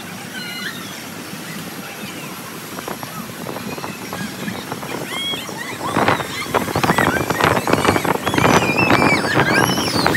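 Wind rushing and buffeting over the microphone of a spinning fairground swing ride, growing much louder about six seconds in as the ride picks up speed, with short high-pitched shrieks over it.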